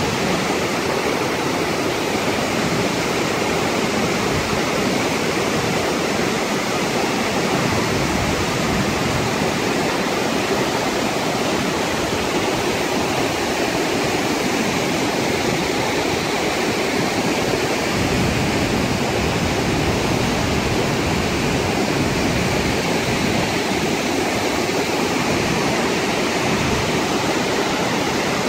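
Flash-flood waterfall pouring into a canyon and a muddy torrent rushing over boulders: a loud, steady rush of water.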